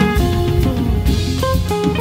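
Jazz organ trio recording: electric guitar playing a line of single notes over organ and drum kit.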